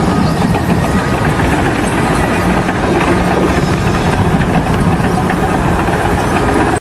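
A large engine running steadily at idle, a loud dense noise with a low hum that holds through and stops abruptly at the end.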